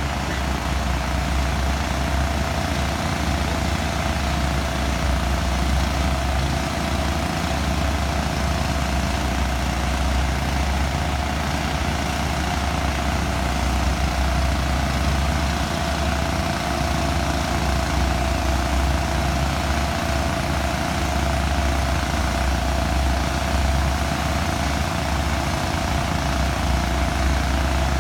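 A crane's engine running steadily at an unchanging speed, a constant low drone.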